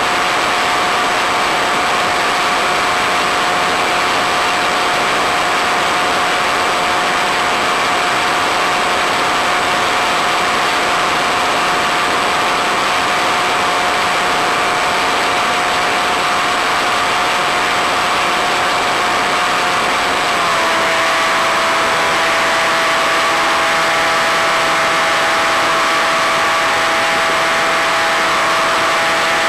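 Electric motor and pusher propeller of an Easystar foam model plane running steadily, a constant whine under a strong hiss of rushing air. The whine steps slightly lower in pitch about two-thirds of the way through, as the throttle eases back a little.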